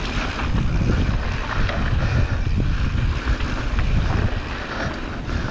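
Wind on the microphone and a low, steady rumble from a Santa Cruz Hightower mountain bike rolling fast down a dirt singletrack, with a few light rattling clicks from the bike.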